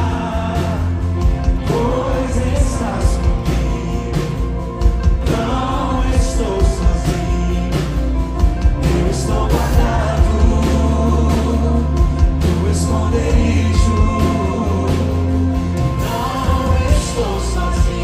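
Live worship band playing: male lead and backing singers over electric guitar, bass and drums.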